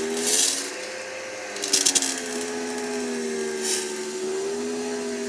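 Electric pressure washer's motor and pump running with a steady whine whose pitch dips and rises as the load changes, while spraying through the 25-degree nozzle. Short bursts of hiss come near the start, about two seconds in and near four seconds.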